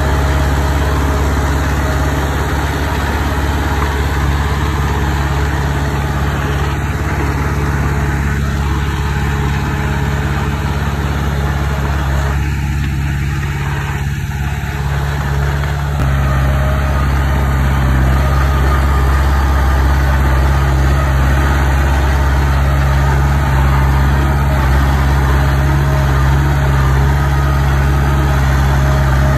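Heavy earthmoving machine's engine running steadily with a deep hum, growing a little louder about halfway through.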